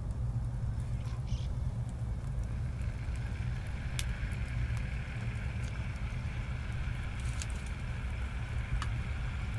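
Small wood fire crackling with occasional sharp pops over a steady low rumble, and a faint hiss from the pot building after a couple of seconds.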